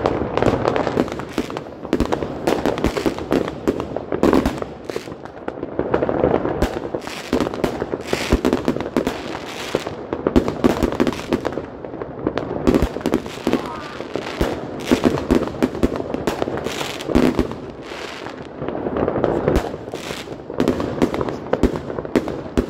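Fireworks going off on all sides: a dense, unbroken crackle of bangs from rockets and aerial bursts, many a second. Some bangs are much louder than the rest.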